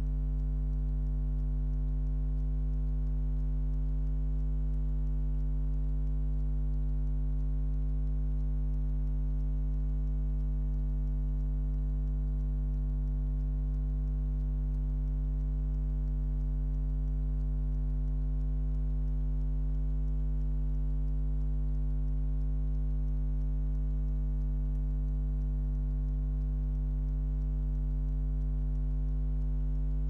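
Hotpoint Aquarius washing machine giving off one steady, unchanging low hum while its drum is at rest during the hand-wash soak.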